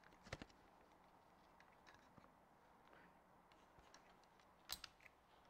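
Near silence broken by a few faint clicks and rustles of clothes hangers and garments being handled: a couple just after the start and a sharper click near the end.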